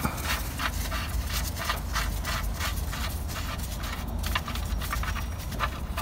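Sump drain plug being unscrewed by gloved fingers after it has been cracked loose: a quick, irregular run of short scratchy rubs, several a second, over a low rumble.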